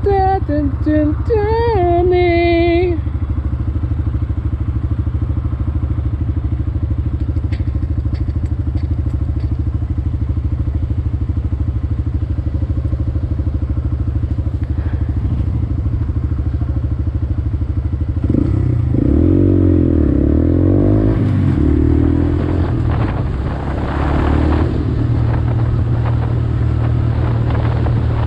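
Honda Grom's 125 cc single-cylinder four-stroke engine idling steadily. About eighteen seconds in it revs up, its pitch swinging up and down for a few seconds, before settling back to a steady run.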